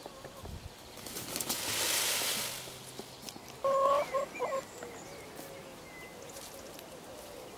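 Peacock shaking his fanned train feathers, a loud rustling rattle that swells and fades over about two seconds. About three and a half seconds in comes a short fowl call of a few quick notes.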